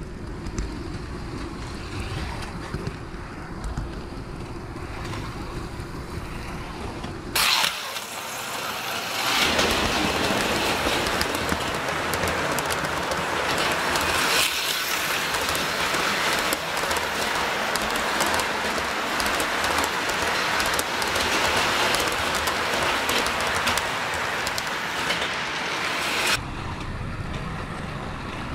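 HO-scale model train running on a layout, a low steady rumble of wheels and motor. About seven seconds in the sound cuts abruptly to a louder, hissy whirring with fine crackling from the model railroad and slot-car layout, which stops just as abruptly about two seconds before the end, when the low rumble returns.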